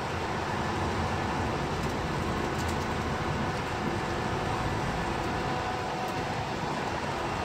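Steady wash of rain mixed with the hum of city traffic from the street below.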